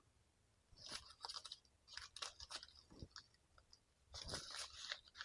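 Faint crinkling and rustling of paper-wrapped firecracker packs being handled, in a few brief spells: about a second in, around two seconds, and again near four seconds.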